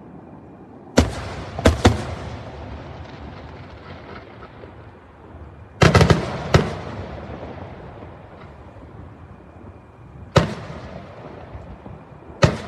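Aerial fireworks shells bursting: sharp bangs in small groups, with three about a second in, two or three around six seconds, then single bangs near ten and twelve seconds. Each bang trails off in a fading rumble.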